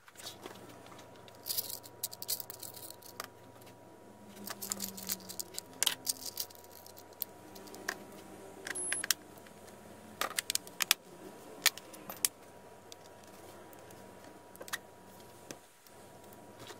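Irregular clicks and taps of a reassembled HP Envy x360 laptop being handled and turned over on a workbench, coming in small clusters.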